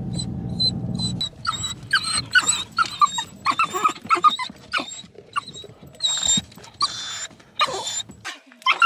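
A cockapoo whining and yipping in a car, a string of short high-pitched cries that rise and fall, over the car's low rumble, which cuts off near the end.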